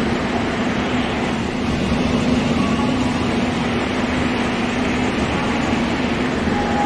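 Seoul Metro Line 4 subway train pulling slowly into the platform: a steady rumble of wheels and running gear with a constant low hum.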